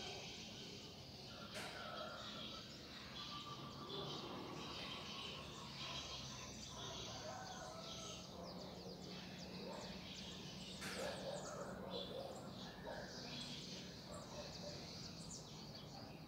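Small birds chirping and calling in a dawn chorus, many short calls overlapping throughout, over a faint steady low hum.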